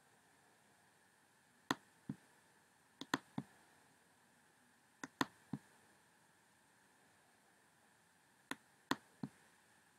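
Sharp, dry clicks in short groups of two or three, a group every two to four seconds, over a faint steady hiss.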